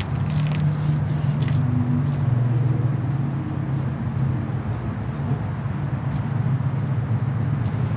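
A motor running steadily with a low hum that wavers slightly in pitch, with a few faint light clicks.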